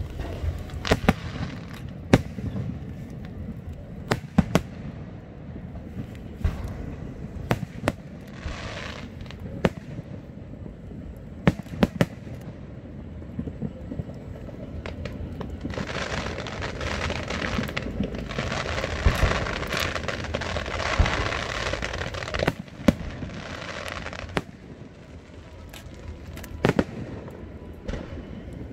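Electronically fired fireworks going off: scattered sharp bangs and pops, with a dense stretch of crackling about halfway through.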